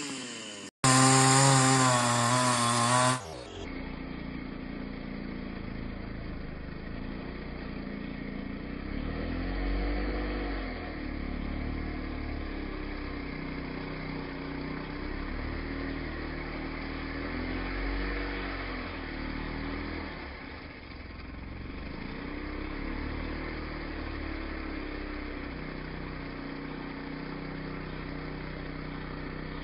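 A chainsaw running steadily, its engine pitch rising and falling every few seconds as it works into the tree. The first three seconds hold a louder, brighter pitched sound that cuts off suddenly.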